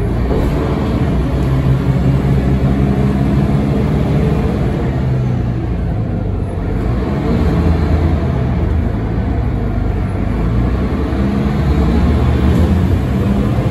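A Volvo B9M city bus's diesel engine and road noise heard from inside the passenger cabin while the bus drives. The engine note rises and falls, dipping briefly about six seconds in.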